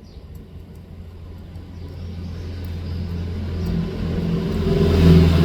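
Low rumble of a motor vehicle, steadily growing louder and loudest near the end.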